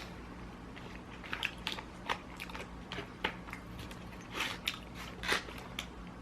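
Close-miked chewing and biting of food, a string of short, irregular mouth clicks.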